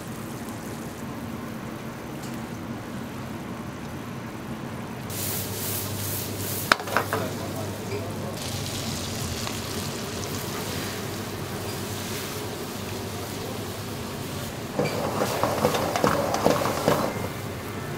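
Food cooking in cast-iron pans on a gas range: steady bubbling and sizzling, with a sharp metallic click about seven seconds in and a louder crackling spell near the end.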